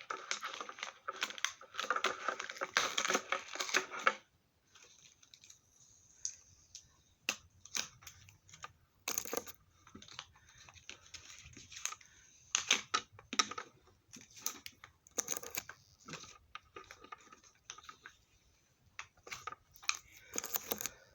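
Small plastic packaging crinkling for about the first four seconds, then scattered light clicks and rustles as small metal coin pendants and their bags are handled.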